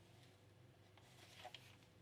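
Near silence: room tone, with a few faint soft clicks about halfway through.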